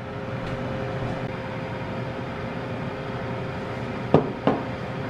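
Steady mechanical hum with a faint steady tone running under it. Two sharp knocks half a second apart come just after four seconds in.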